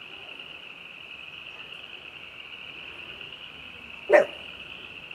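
A dog barks once, short and sharp, about four seconds in, over a steady high-pitched background chorus.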